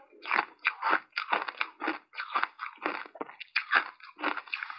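Biting and chewing compacted snowball ice coated in matcha powder: a rapid, irregular run of crisp crunches, about three a second.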